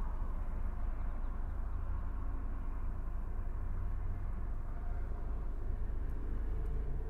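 Car driving: a steady low road and engine rumble.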